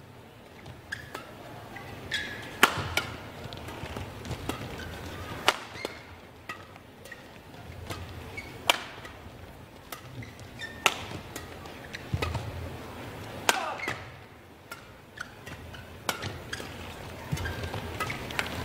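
Badminton rackets striking the shuttlecock during a fast doubles rally: sharp, crisp cracks at uneven intervals, about one every second or two.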